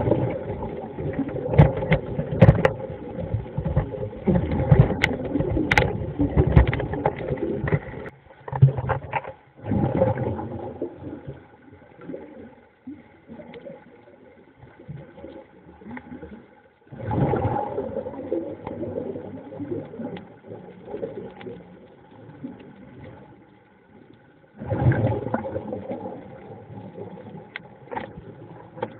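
Muffled underwater noise picked up by a diving camera: a steady drone with crackling, swelling into louder surges about every seven or eight seconds.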